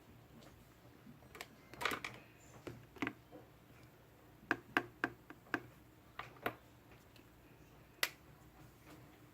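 Irregular light clicks and taps in a small room, a dozen or so, bunched around two seconds in and again around five seconds in, with one sharper click near the end.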